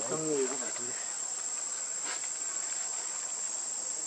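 Steady high-pitched drone of insects, one unbroken tone. A short voice with wavering pitch sounds in the first half second.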